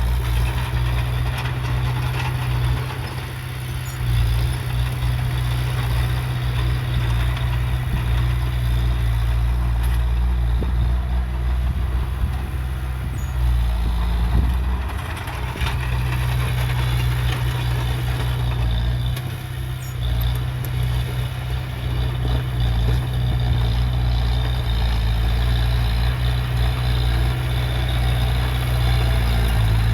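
Heavy diesel engine of earthmoving machinery running steadily, with a clattering mechanical noise over the low engine hum. The engine note drops briefly a few times.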